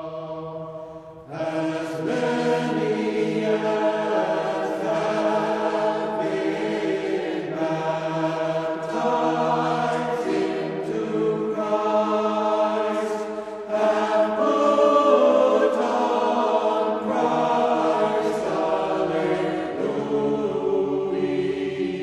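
Choir chanting, sustained voices over a low held drone note. More voices come in about a second in, and the drone drops out a little past halfway.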